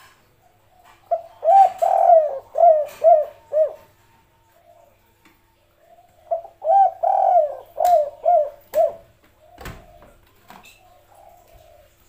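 Spotted dove cooing: two song phrases, each a quick run of about six coos, the second starting about five seconds after the first. A single short knock comes near ten seconds in.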